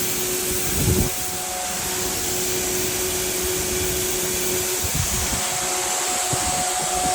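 Shelled corn pouring into a grain bin from the unloading auger, a steady rushing hiss over a steady motor hum. A low bump about a second in.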